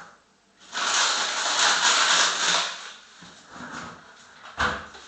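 Plastic bag of frozen green beans crinkling and rustling as it is handled, loudest for about two seconds, then a single knock near the end.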